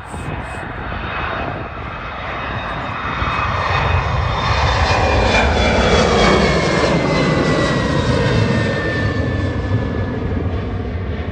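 Airliner passing close by, its engine noise building to a loud peak about halfway through and then easing off. A high engine whine slides steadily down in pitch as it goes by.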